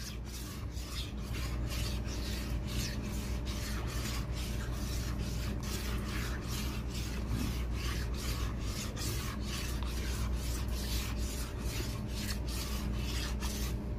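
A spatula scraping and stirring very thick ube maja in a wide pan, a rhythmic rasping of about three strokes a second. The pudding is cooked almost to the end and has turned stiff and sticky.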